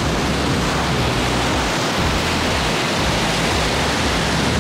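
Sea water rushing and churning white along the hull of a moving car ferry: a steady, even rush.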